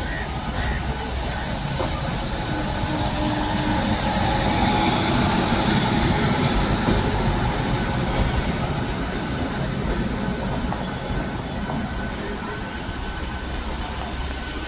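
Electric-hauled passenger train rolling past on the neighbouring track, a steady rumble of steel wheels on rail that swells as the locomotive passes close, loudest around five seconds in, then eases off.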